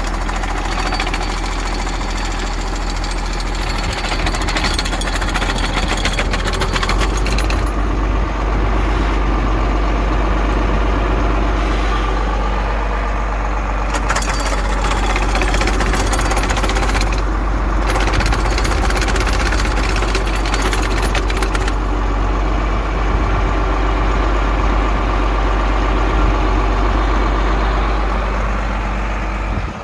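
A 1978 John Deere 4840's turbocharged six-cylinder diesel idling steadily, heard close up, with a dense rapid clatter over a constant low hum.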